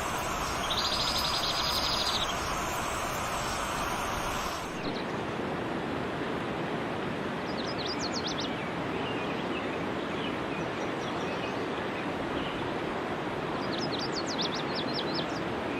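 Steady background hiss with bird calls: a short high buzzing trill near the start, then after a cut a few sharp high chirps about halfway and a quick run of chirps near the end.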